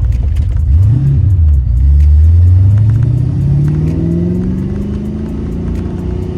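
Fox-body Mustang engine accelerating: the revs rise and fall briefly about a second in, then climb steadily and level off, as the car is test-driven to check the T5 transmission's scraping noise.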